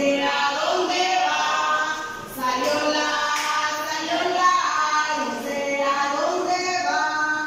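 A group of female voices, women and girls, singing a children's song together in phrases with short breaks between them.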